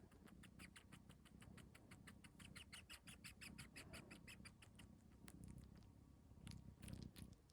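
A cat suckling, nursing-style, making rapid wet sucking clicks about seven a second over a low purr. The clicks stop about five seconds in and come back briefly near the end.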